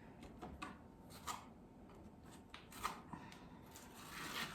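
Faint strokes of a trowel spreading joint compound (mud) across a wall in a skim coat: about four short scraping swishes, spaced unevenly.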